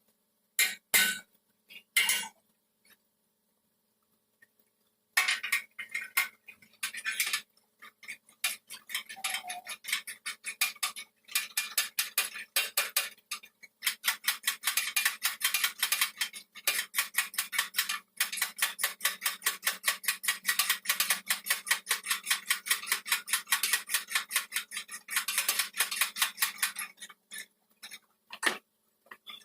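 Metal hammer tapping on vehicle sheet metal, as in panel beating: a few scattered strikes at first, then a fast steady run of about six taps a second for most of the second half, with a faint steady hum underneath.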